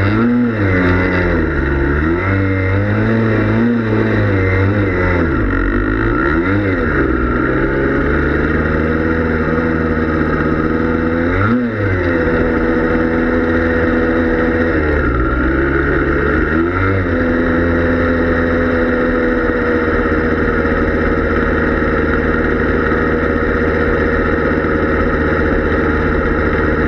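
Yamaha Blaster ATV's single-cylinder two-stroke engine running under way, its revs dropping and climbing several times over the first part, then holding steady for the last ten seconds or so.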